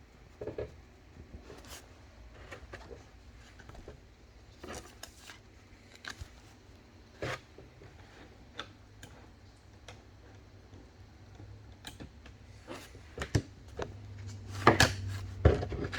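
Trading cards and their sleeves being handled on a table: scattered soft clicks, taps and rustles, with a few louder knocks near the end.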